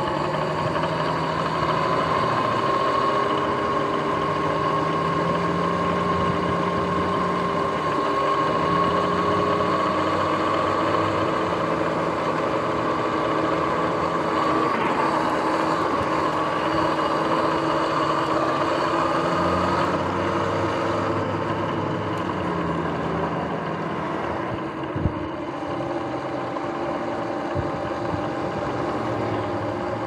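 Sur-Ron electric dirt bike under way: the electric motor and chain drive whine steadily over road noise, the main whine's pitch creeping up for about twenty seconds and then dropping, with a single sharp knock about 25 seconds in. The rider blames the bike's grinding, clicking noise on failing front hub and jackshaft bearings.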